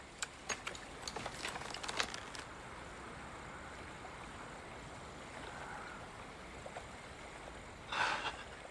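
Quiet outdoor ambience: a steady wash of noise like distant water. A scatter of light clicks and taps comes in the first two seconds, and a short breathy burst near the end.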